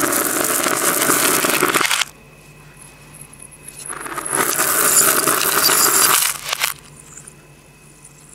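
Clatter of faux-pearl beads and then of flat glass gems spilling onto a laminate floor, played in reverse. There are two bursts of dense clicking, the first at the start and the second about four seconds in, each swelling and then cutting off suddenly.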